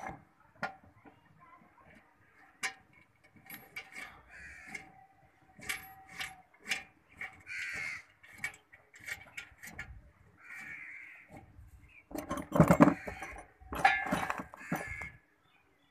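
Metal bolts, washers and the mounting bracket of a PowerBeam dish clicking and clinking as they are fitted by hand. Near the end comes a louder stretch of rattling as loose bolts are picked through. A few short cawing calls sound in between.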